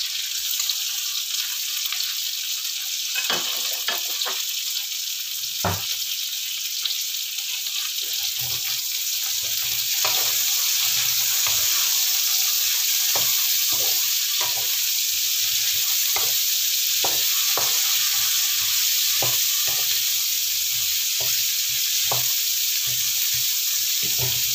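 Sliced bitter melon, onion and anchovies sizzling in oil in a wok, stirred with a wooden spatula that scrapes and knocks against the pan at irregular intervals. The sizzle grows a little louder about ten seconds in.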